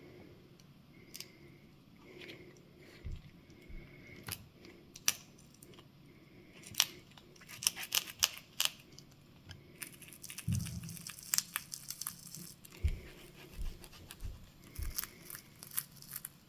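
Pry tool working the Nintendo Switch's glued-in battery loose: scattered sharp clicks and scrapes, densest about seven to nine seconds in, then a couple of seconds of crackly tearing as the battery adhesive gives, with a few dull knocks.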